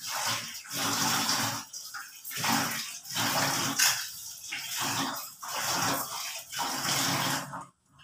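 Cucumber and carrot pieces sizzling and bubbling in a wok, the hiss coming in surges about once a second. It cuts off suddenly near the end.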